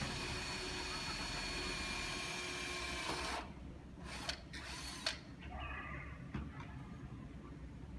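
KDK exhaust fan running with a steady whir and a thin whine, cutting off abruptly about three and a half seconds in. A few sharp clicks follow.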